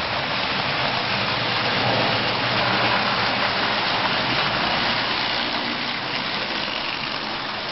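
Marx tinplate O-gauge toy passenger train running around three-rail tubular track: a steady noisy rumble of wheels on the tin rails, with a faint low hum underneath.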